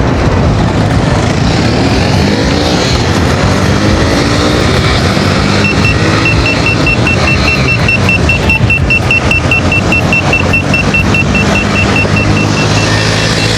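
Wind rushing hard over the microphone of a Begode Master Pro electric unicycle at high speed, over a low hum. About six seconds in the wheel starts a rapid run of evenly spaced high beeps that goes on nearly to the end: its speed alarm warning that the set 48 mph tilt-back speed is being reached.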